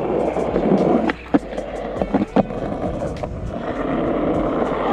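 Skateboard wheels rolling over rough asphalt, a steady rumble that grows a little louder near the end, with a few sharp knocks about one second in and again around two seconds.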